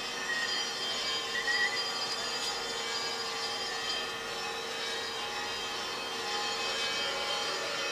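Orthodox church bells ringing a full welcoming peal on all the bells, many bells overlapping into a dense, steady ringing with occasional louder strikes.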